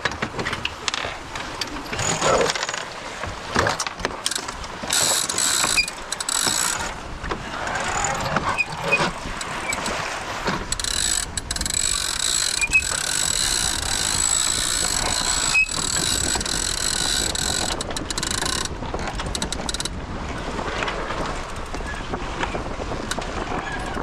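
Sailboat deck hardware at work, with a winch ratcheting and lines running through blocks under load: clicks and knocks early on, then a steady high whine for most of the middle that stops near the end.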